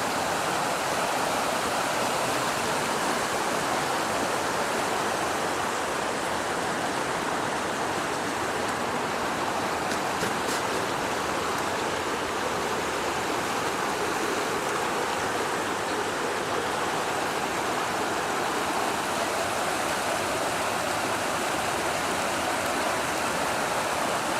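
Flooded creek rushing steadily, the swollen water churning and pouring past in a continuous roar of noise with no let-up.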